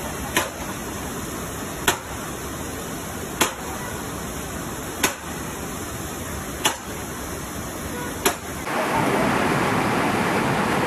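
A sharp crack repeating evenly about every one and a half seconds over a steady rushing noise. Near the end it cuts to a louder, denser rush of water-like noise.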